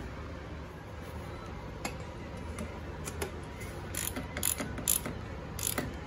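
Hand ratchet and socket clicking in a few short, irregular runs, with light metal tool clinks, while a new ICP sensor is screwed in on a Ford 6.0 Power Stroke diesel. The clicks come mostly in the second half.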